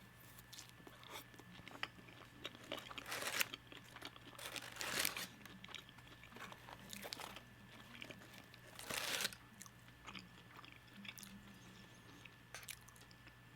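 Close-miked chewing and biting of crispy seasoned fries, with three louder crunches, about three, five and nine seconds in, among smaller wet mouth clicks.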